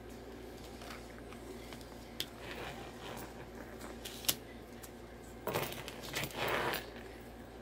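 Washi tape being pressed and smoothed down onto planner paper by fingers with long nails: a few light clicks of nails on the page, then short rubbing rustles of the tape and paper near the end.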